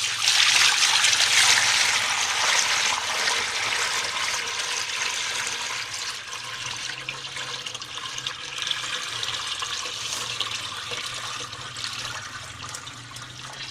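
Herbal decoction being poured off from one container into another, a steady splashing pour that starts suddenly, is loudest in the first couple of seconds and gradually thins out. The liquid is being decanted off the settled sediment.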